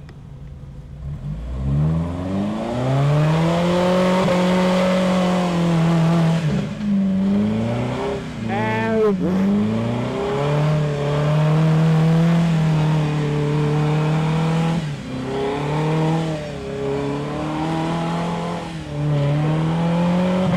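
Jeep Wrangler TJ's engine revving hard under load through deep mud. The revs climb about two seconds in, are held high, and drop and rise again several times.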